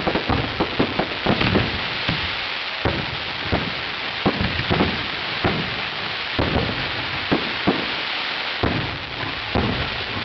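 Fireworks display: irregular booming bursts over a steady crackling hiss. The bangs thin out and the sound fades near the end.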